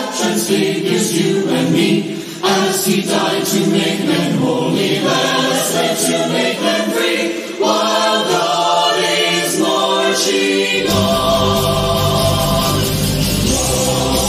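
A mixed group of male and female voices singing together in harmony into microphones. About eleven seconds in, a deep bass layer comes in under the voices and the music fills out.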